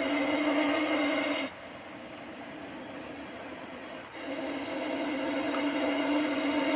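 Russell's viper hissing: a loud hiss that stops suddenly about a second and a half in, a quieter stretch, then loud hissing again from about four seconds.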